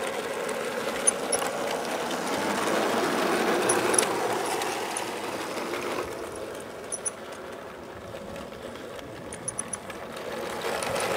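Newqida G-scale model steam locomotive running on its garden track with a carriage in tow: a steady electric-motor and wheel whirr that grows louder a couple of seconds in and eases off in the second half, with light clicks here and there.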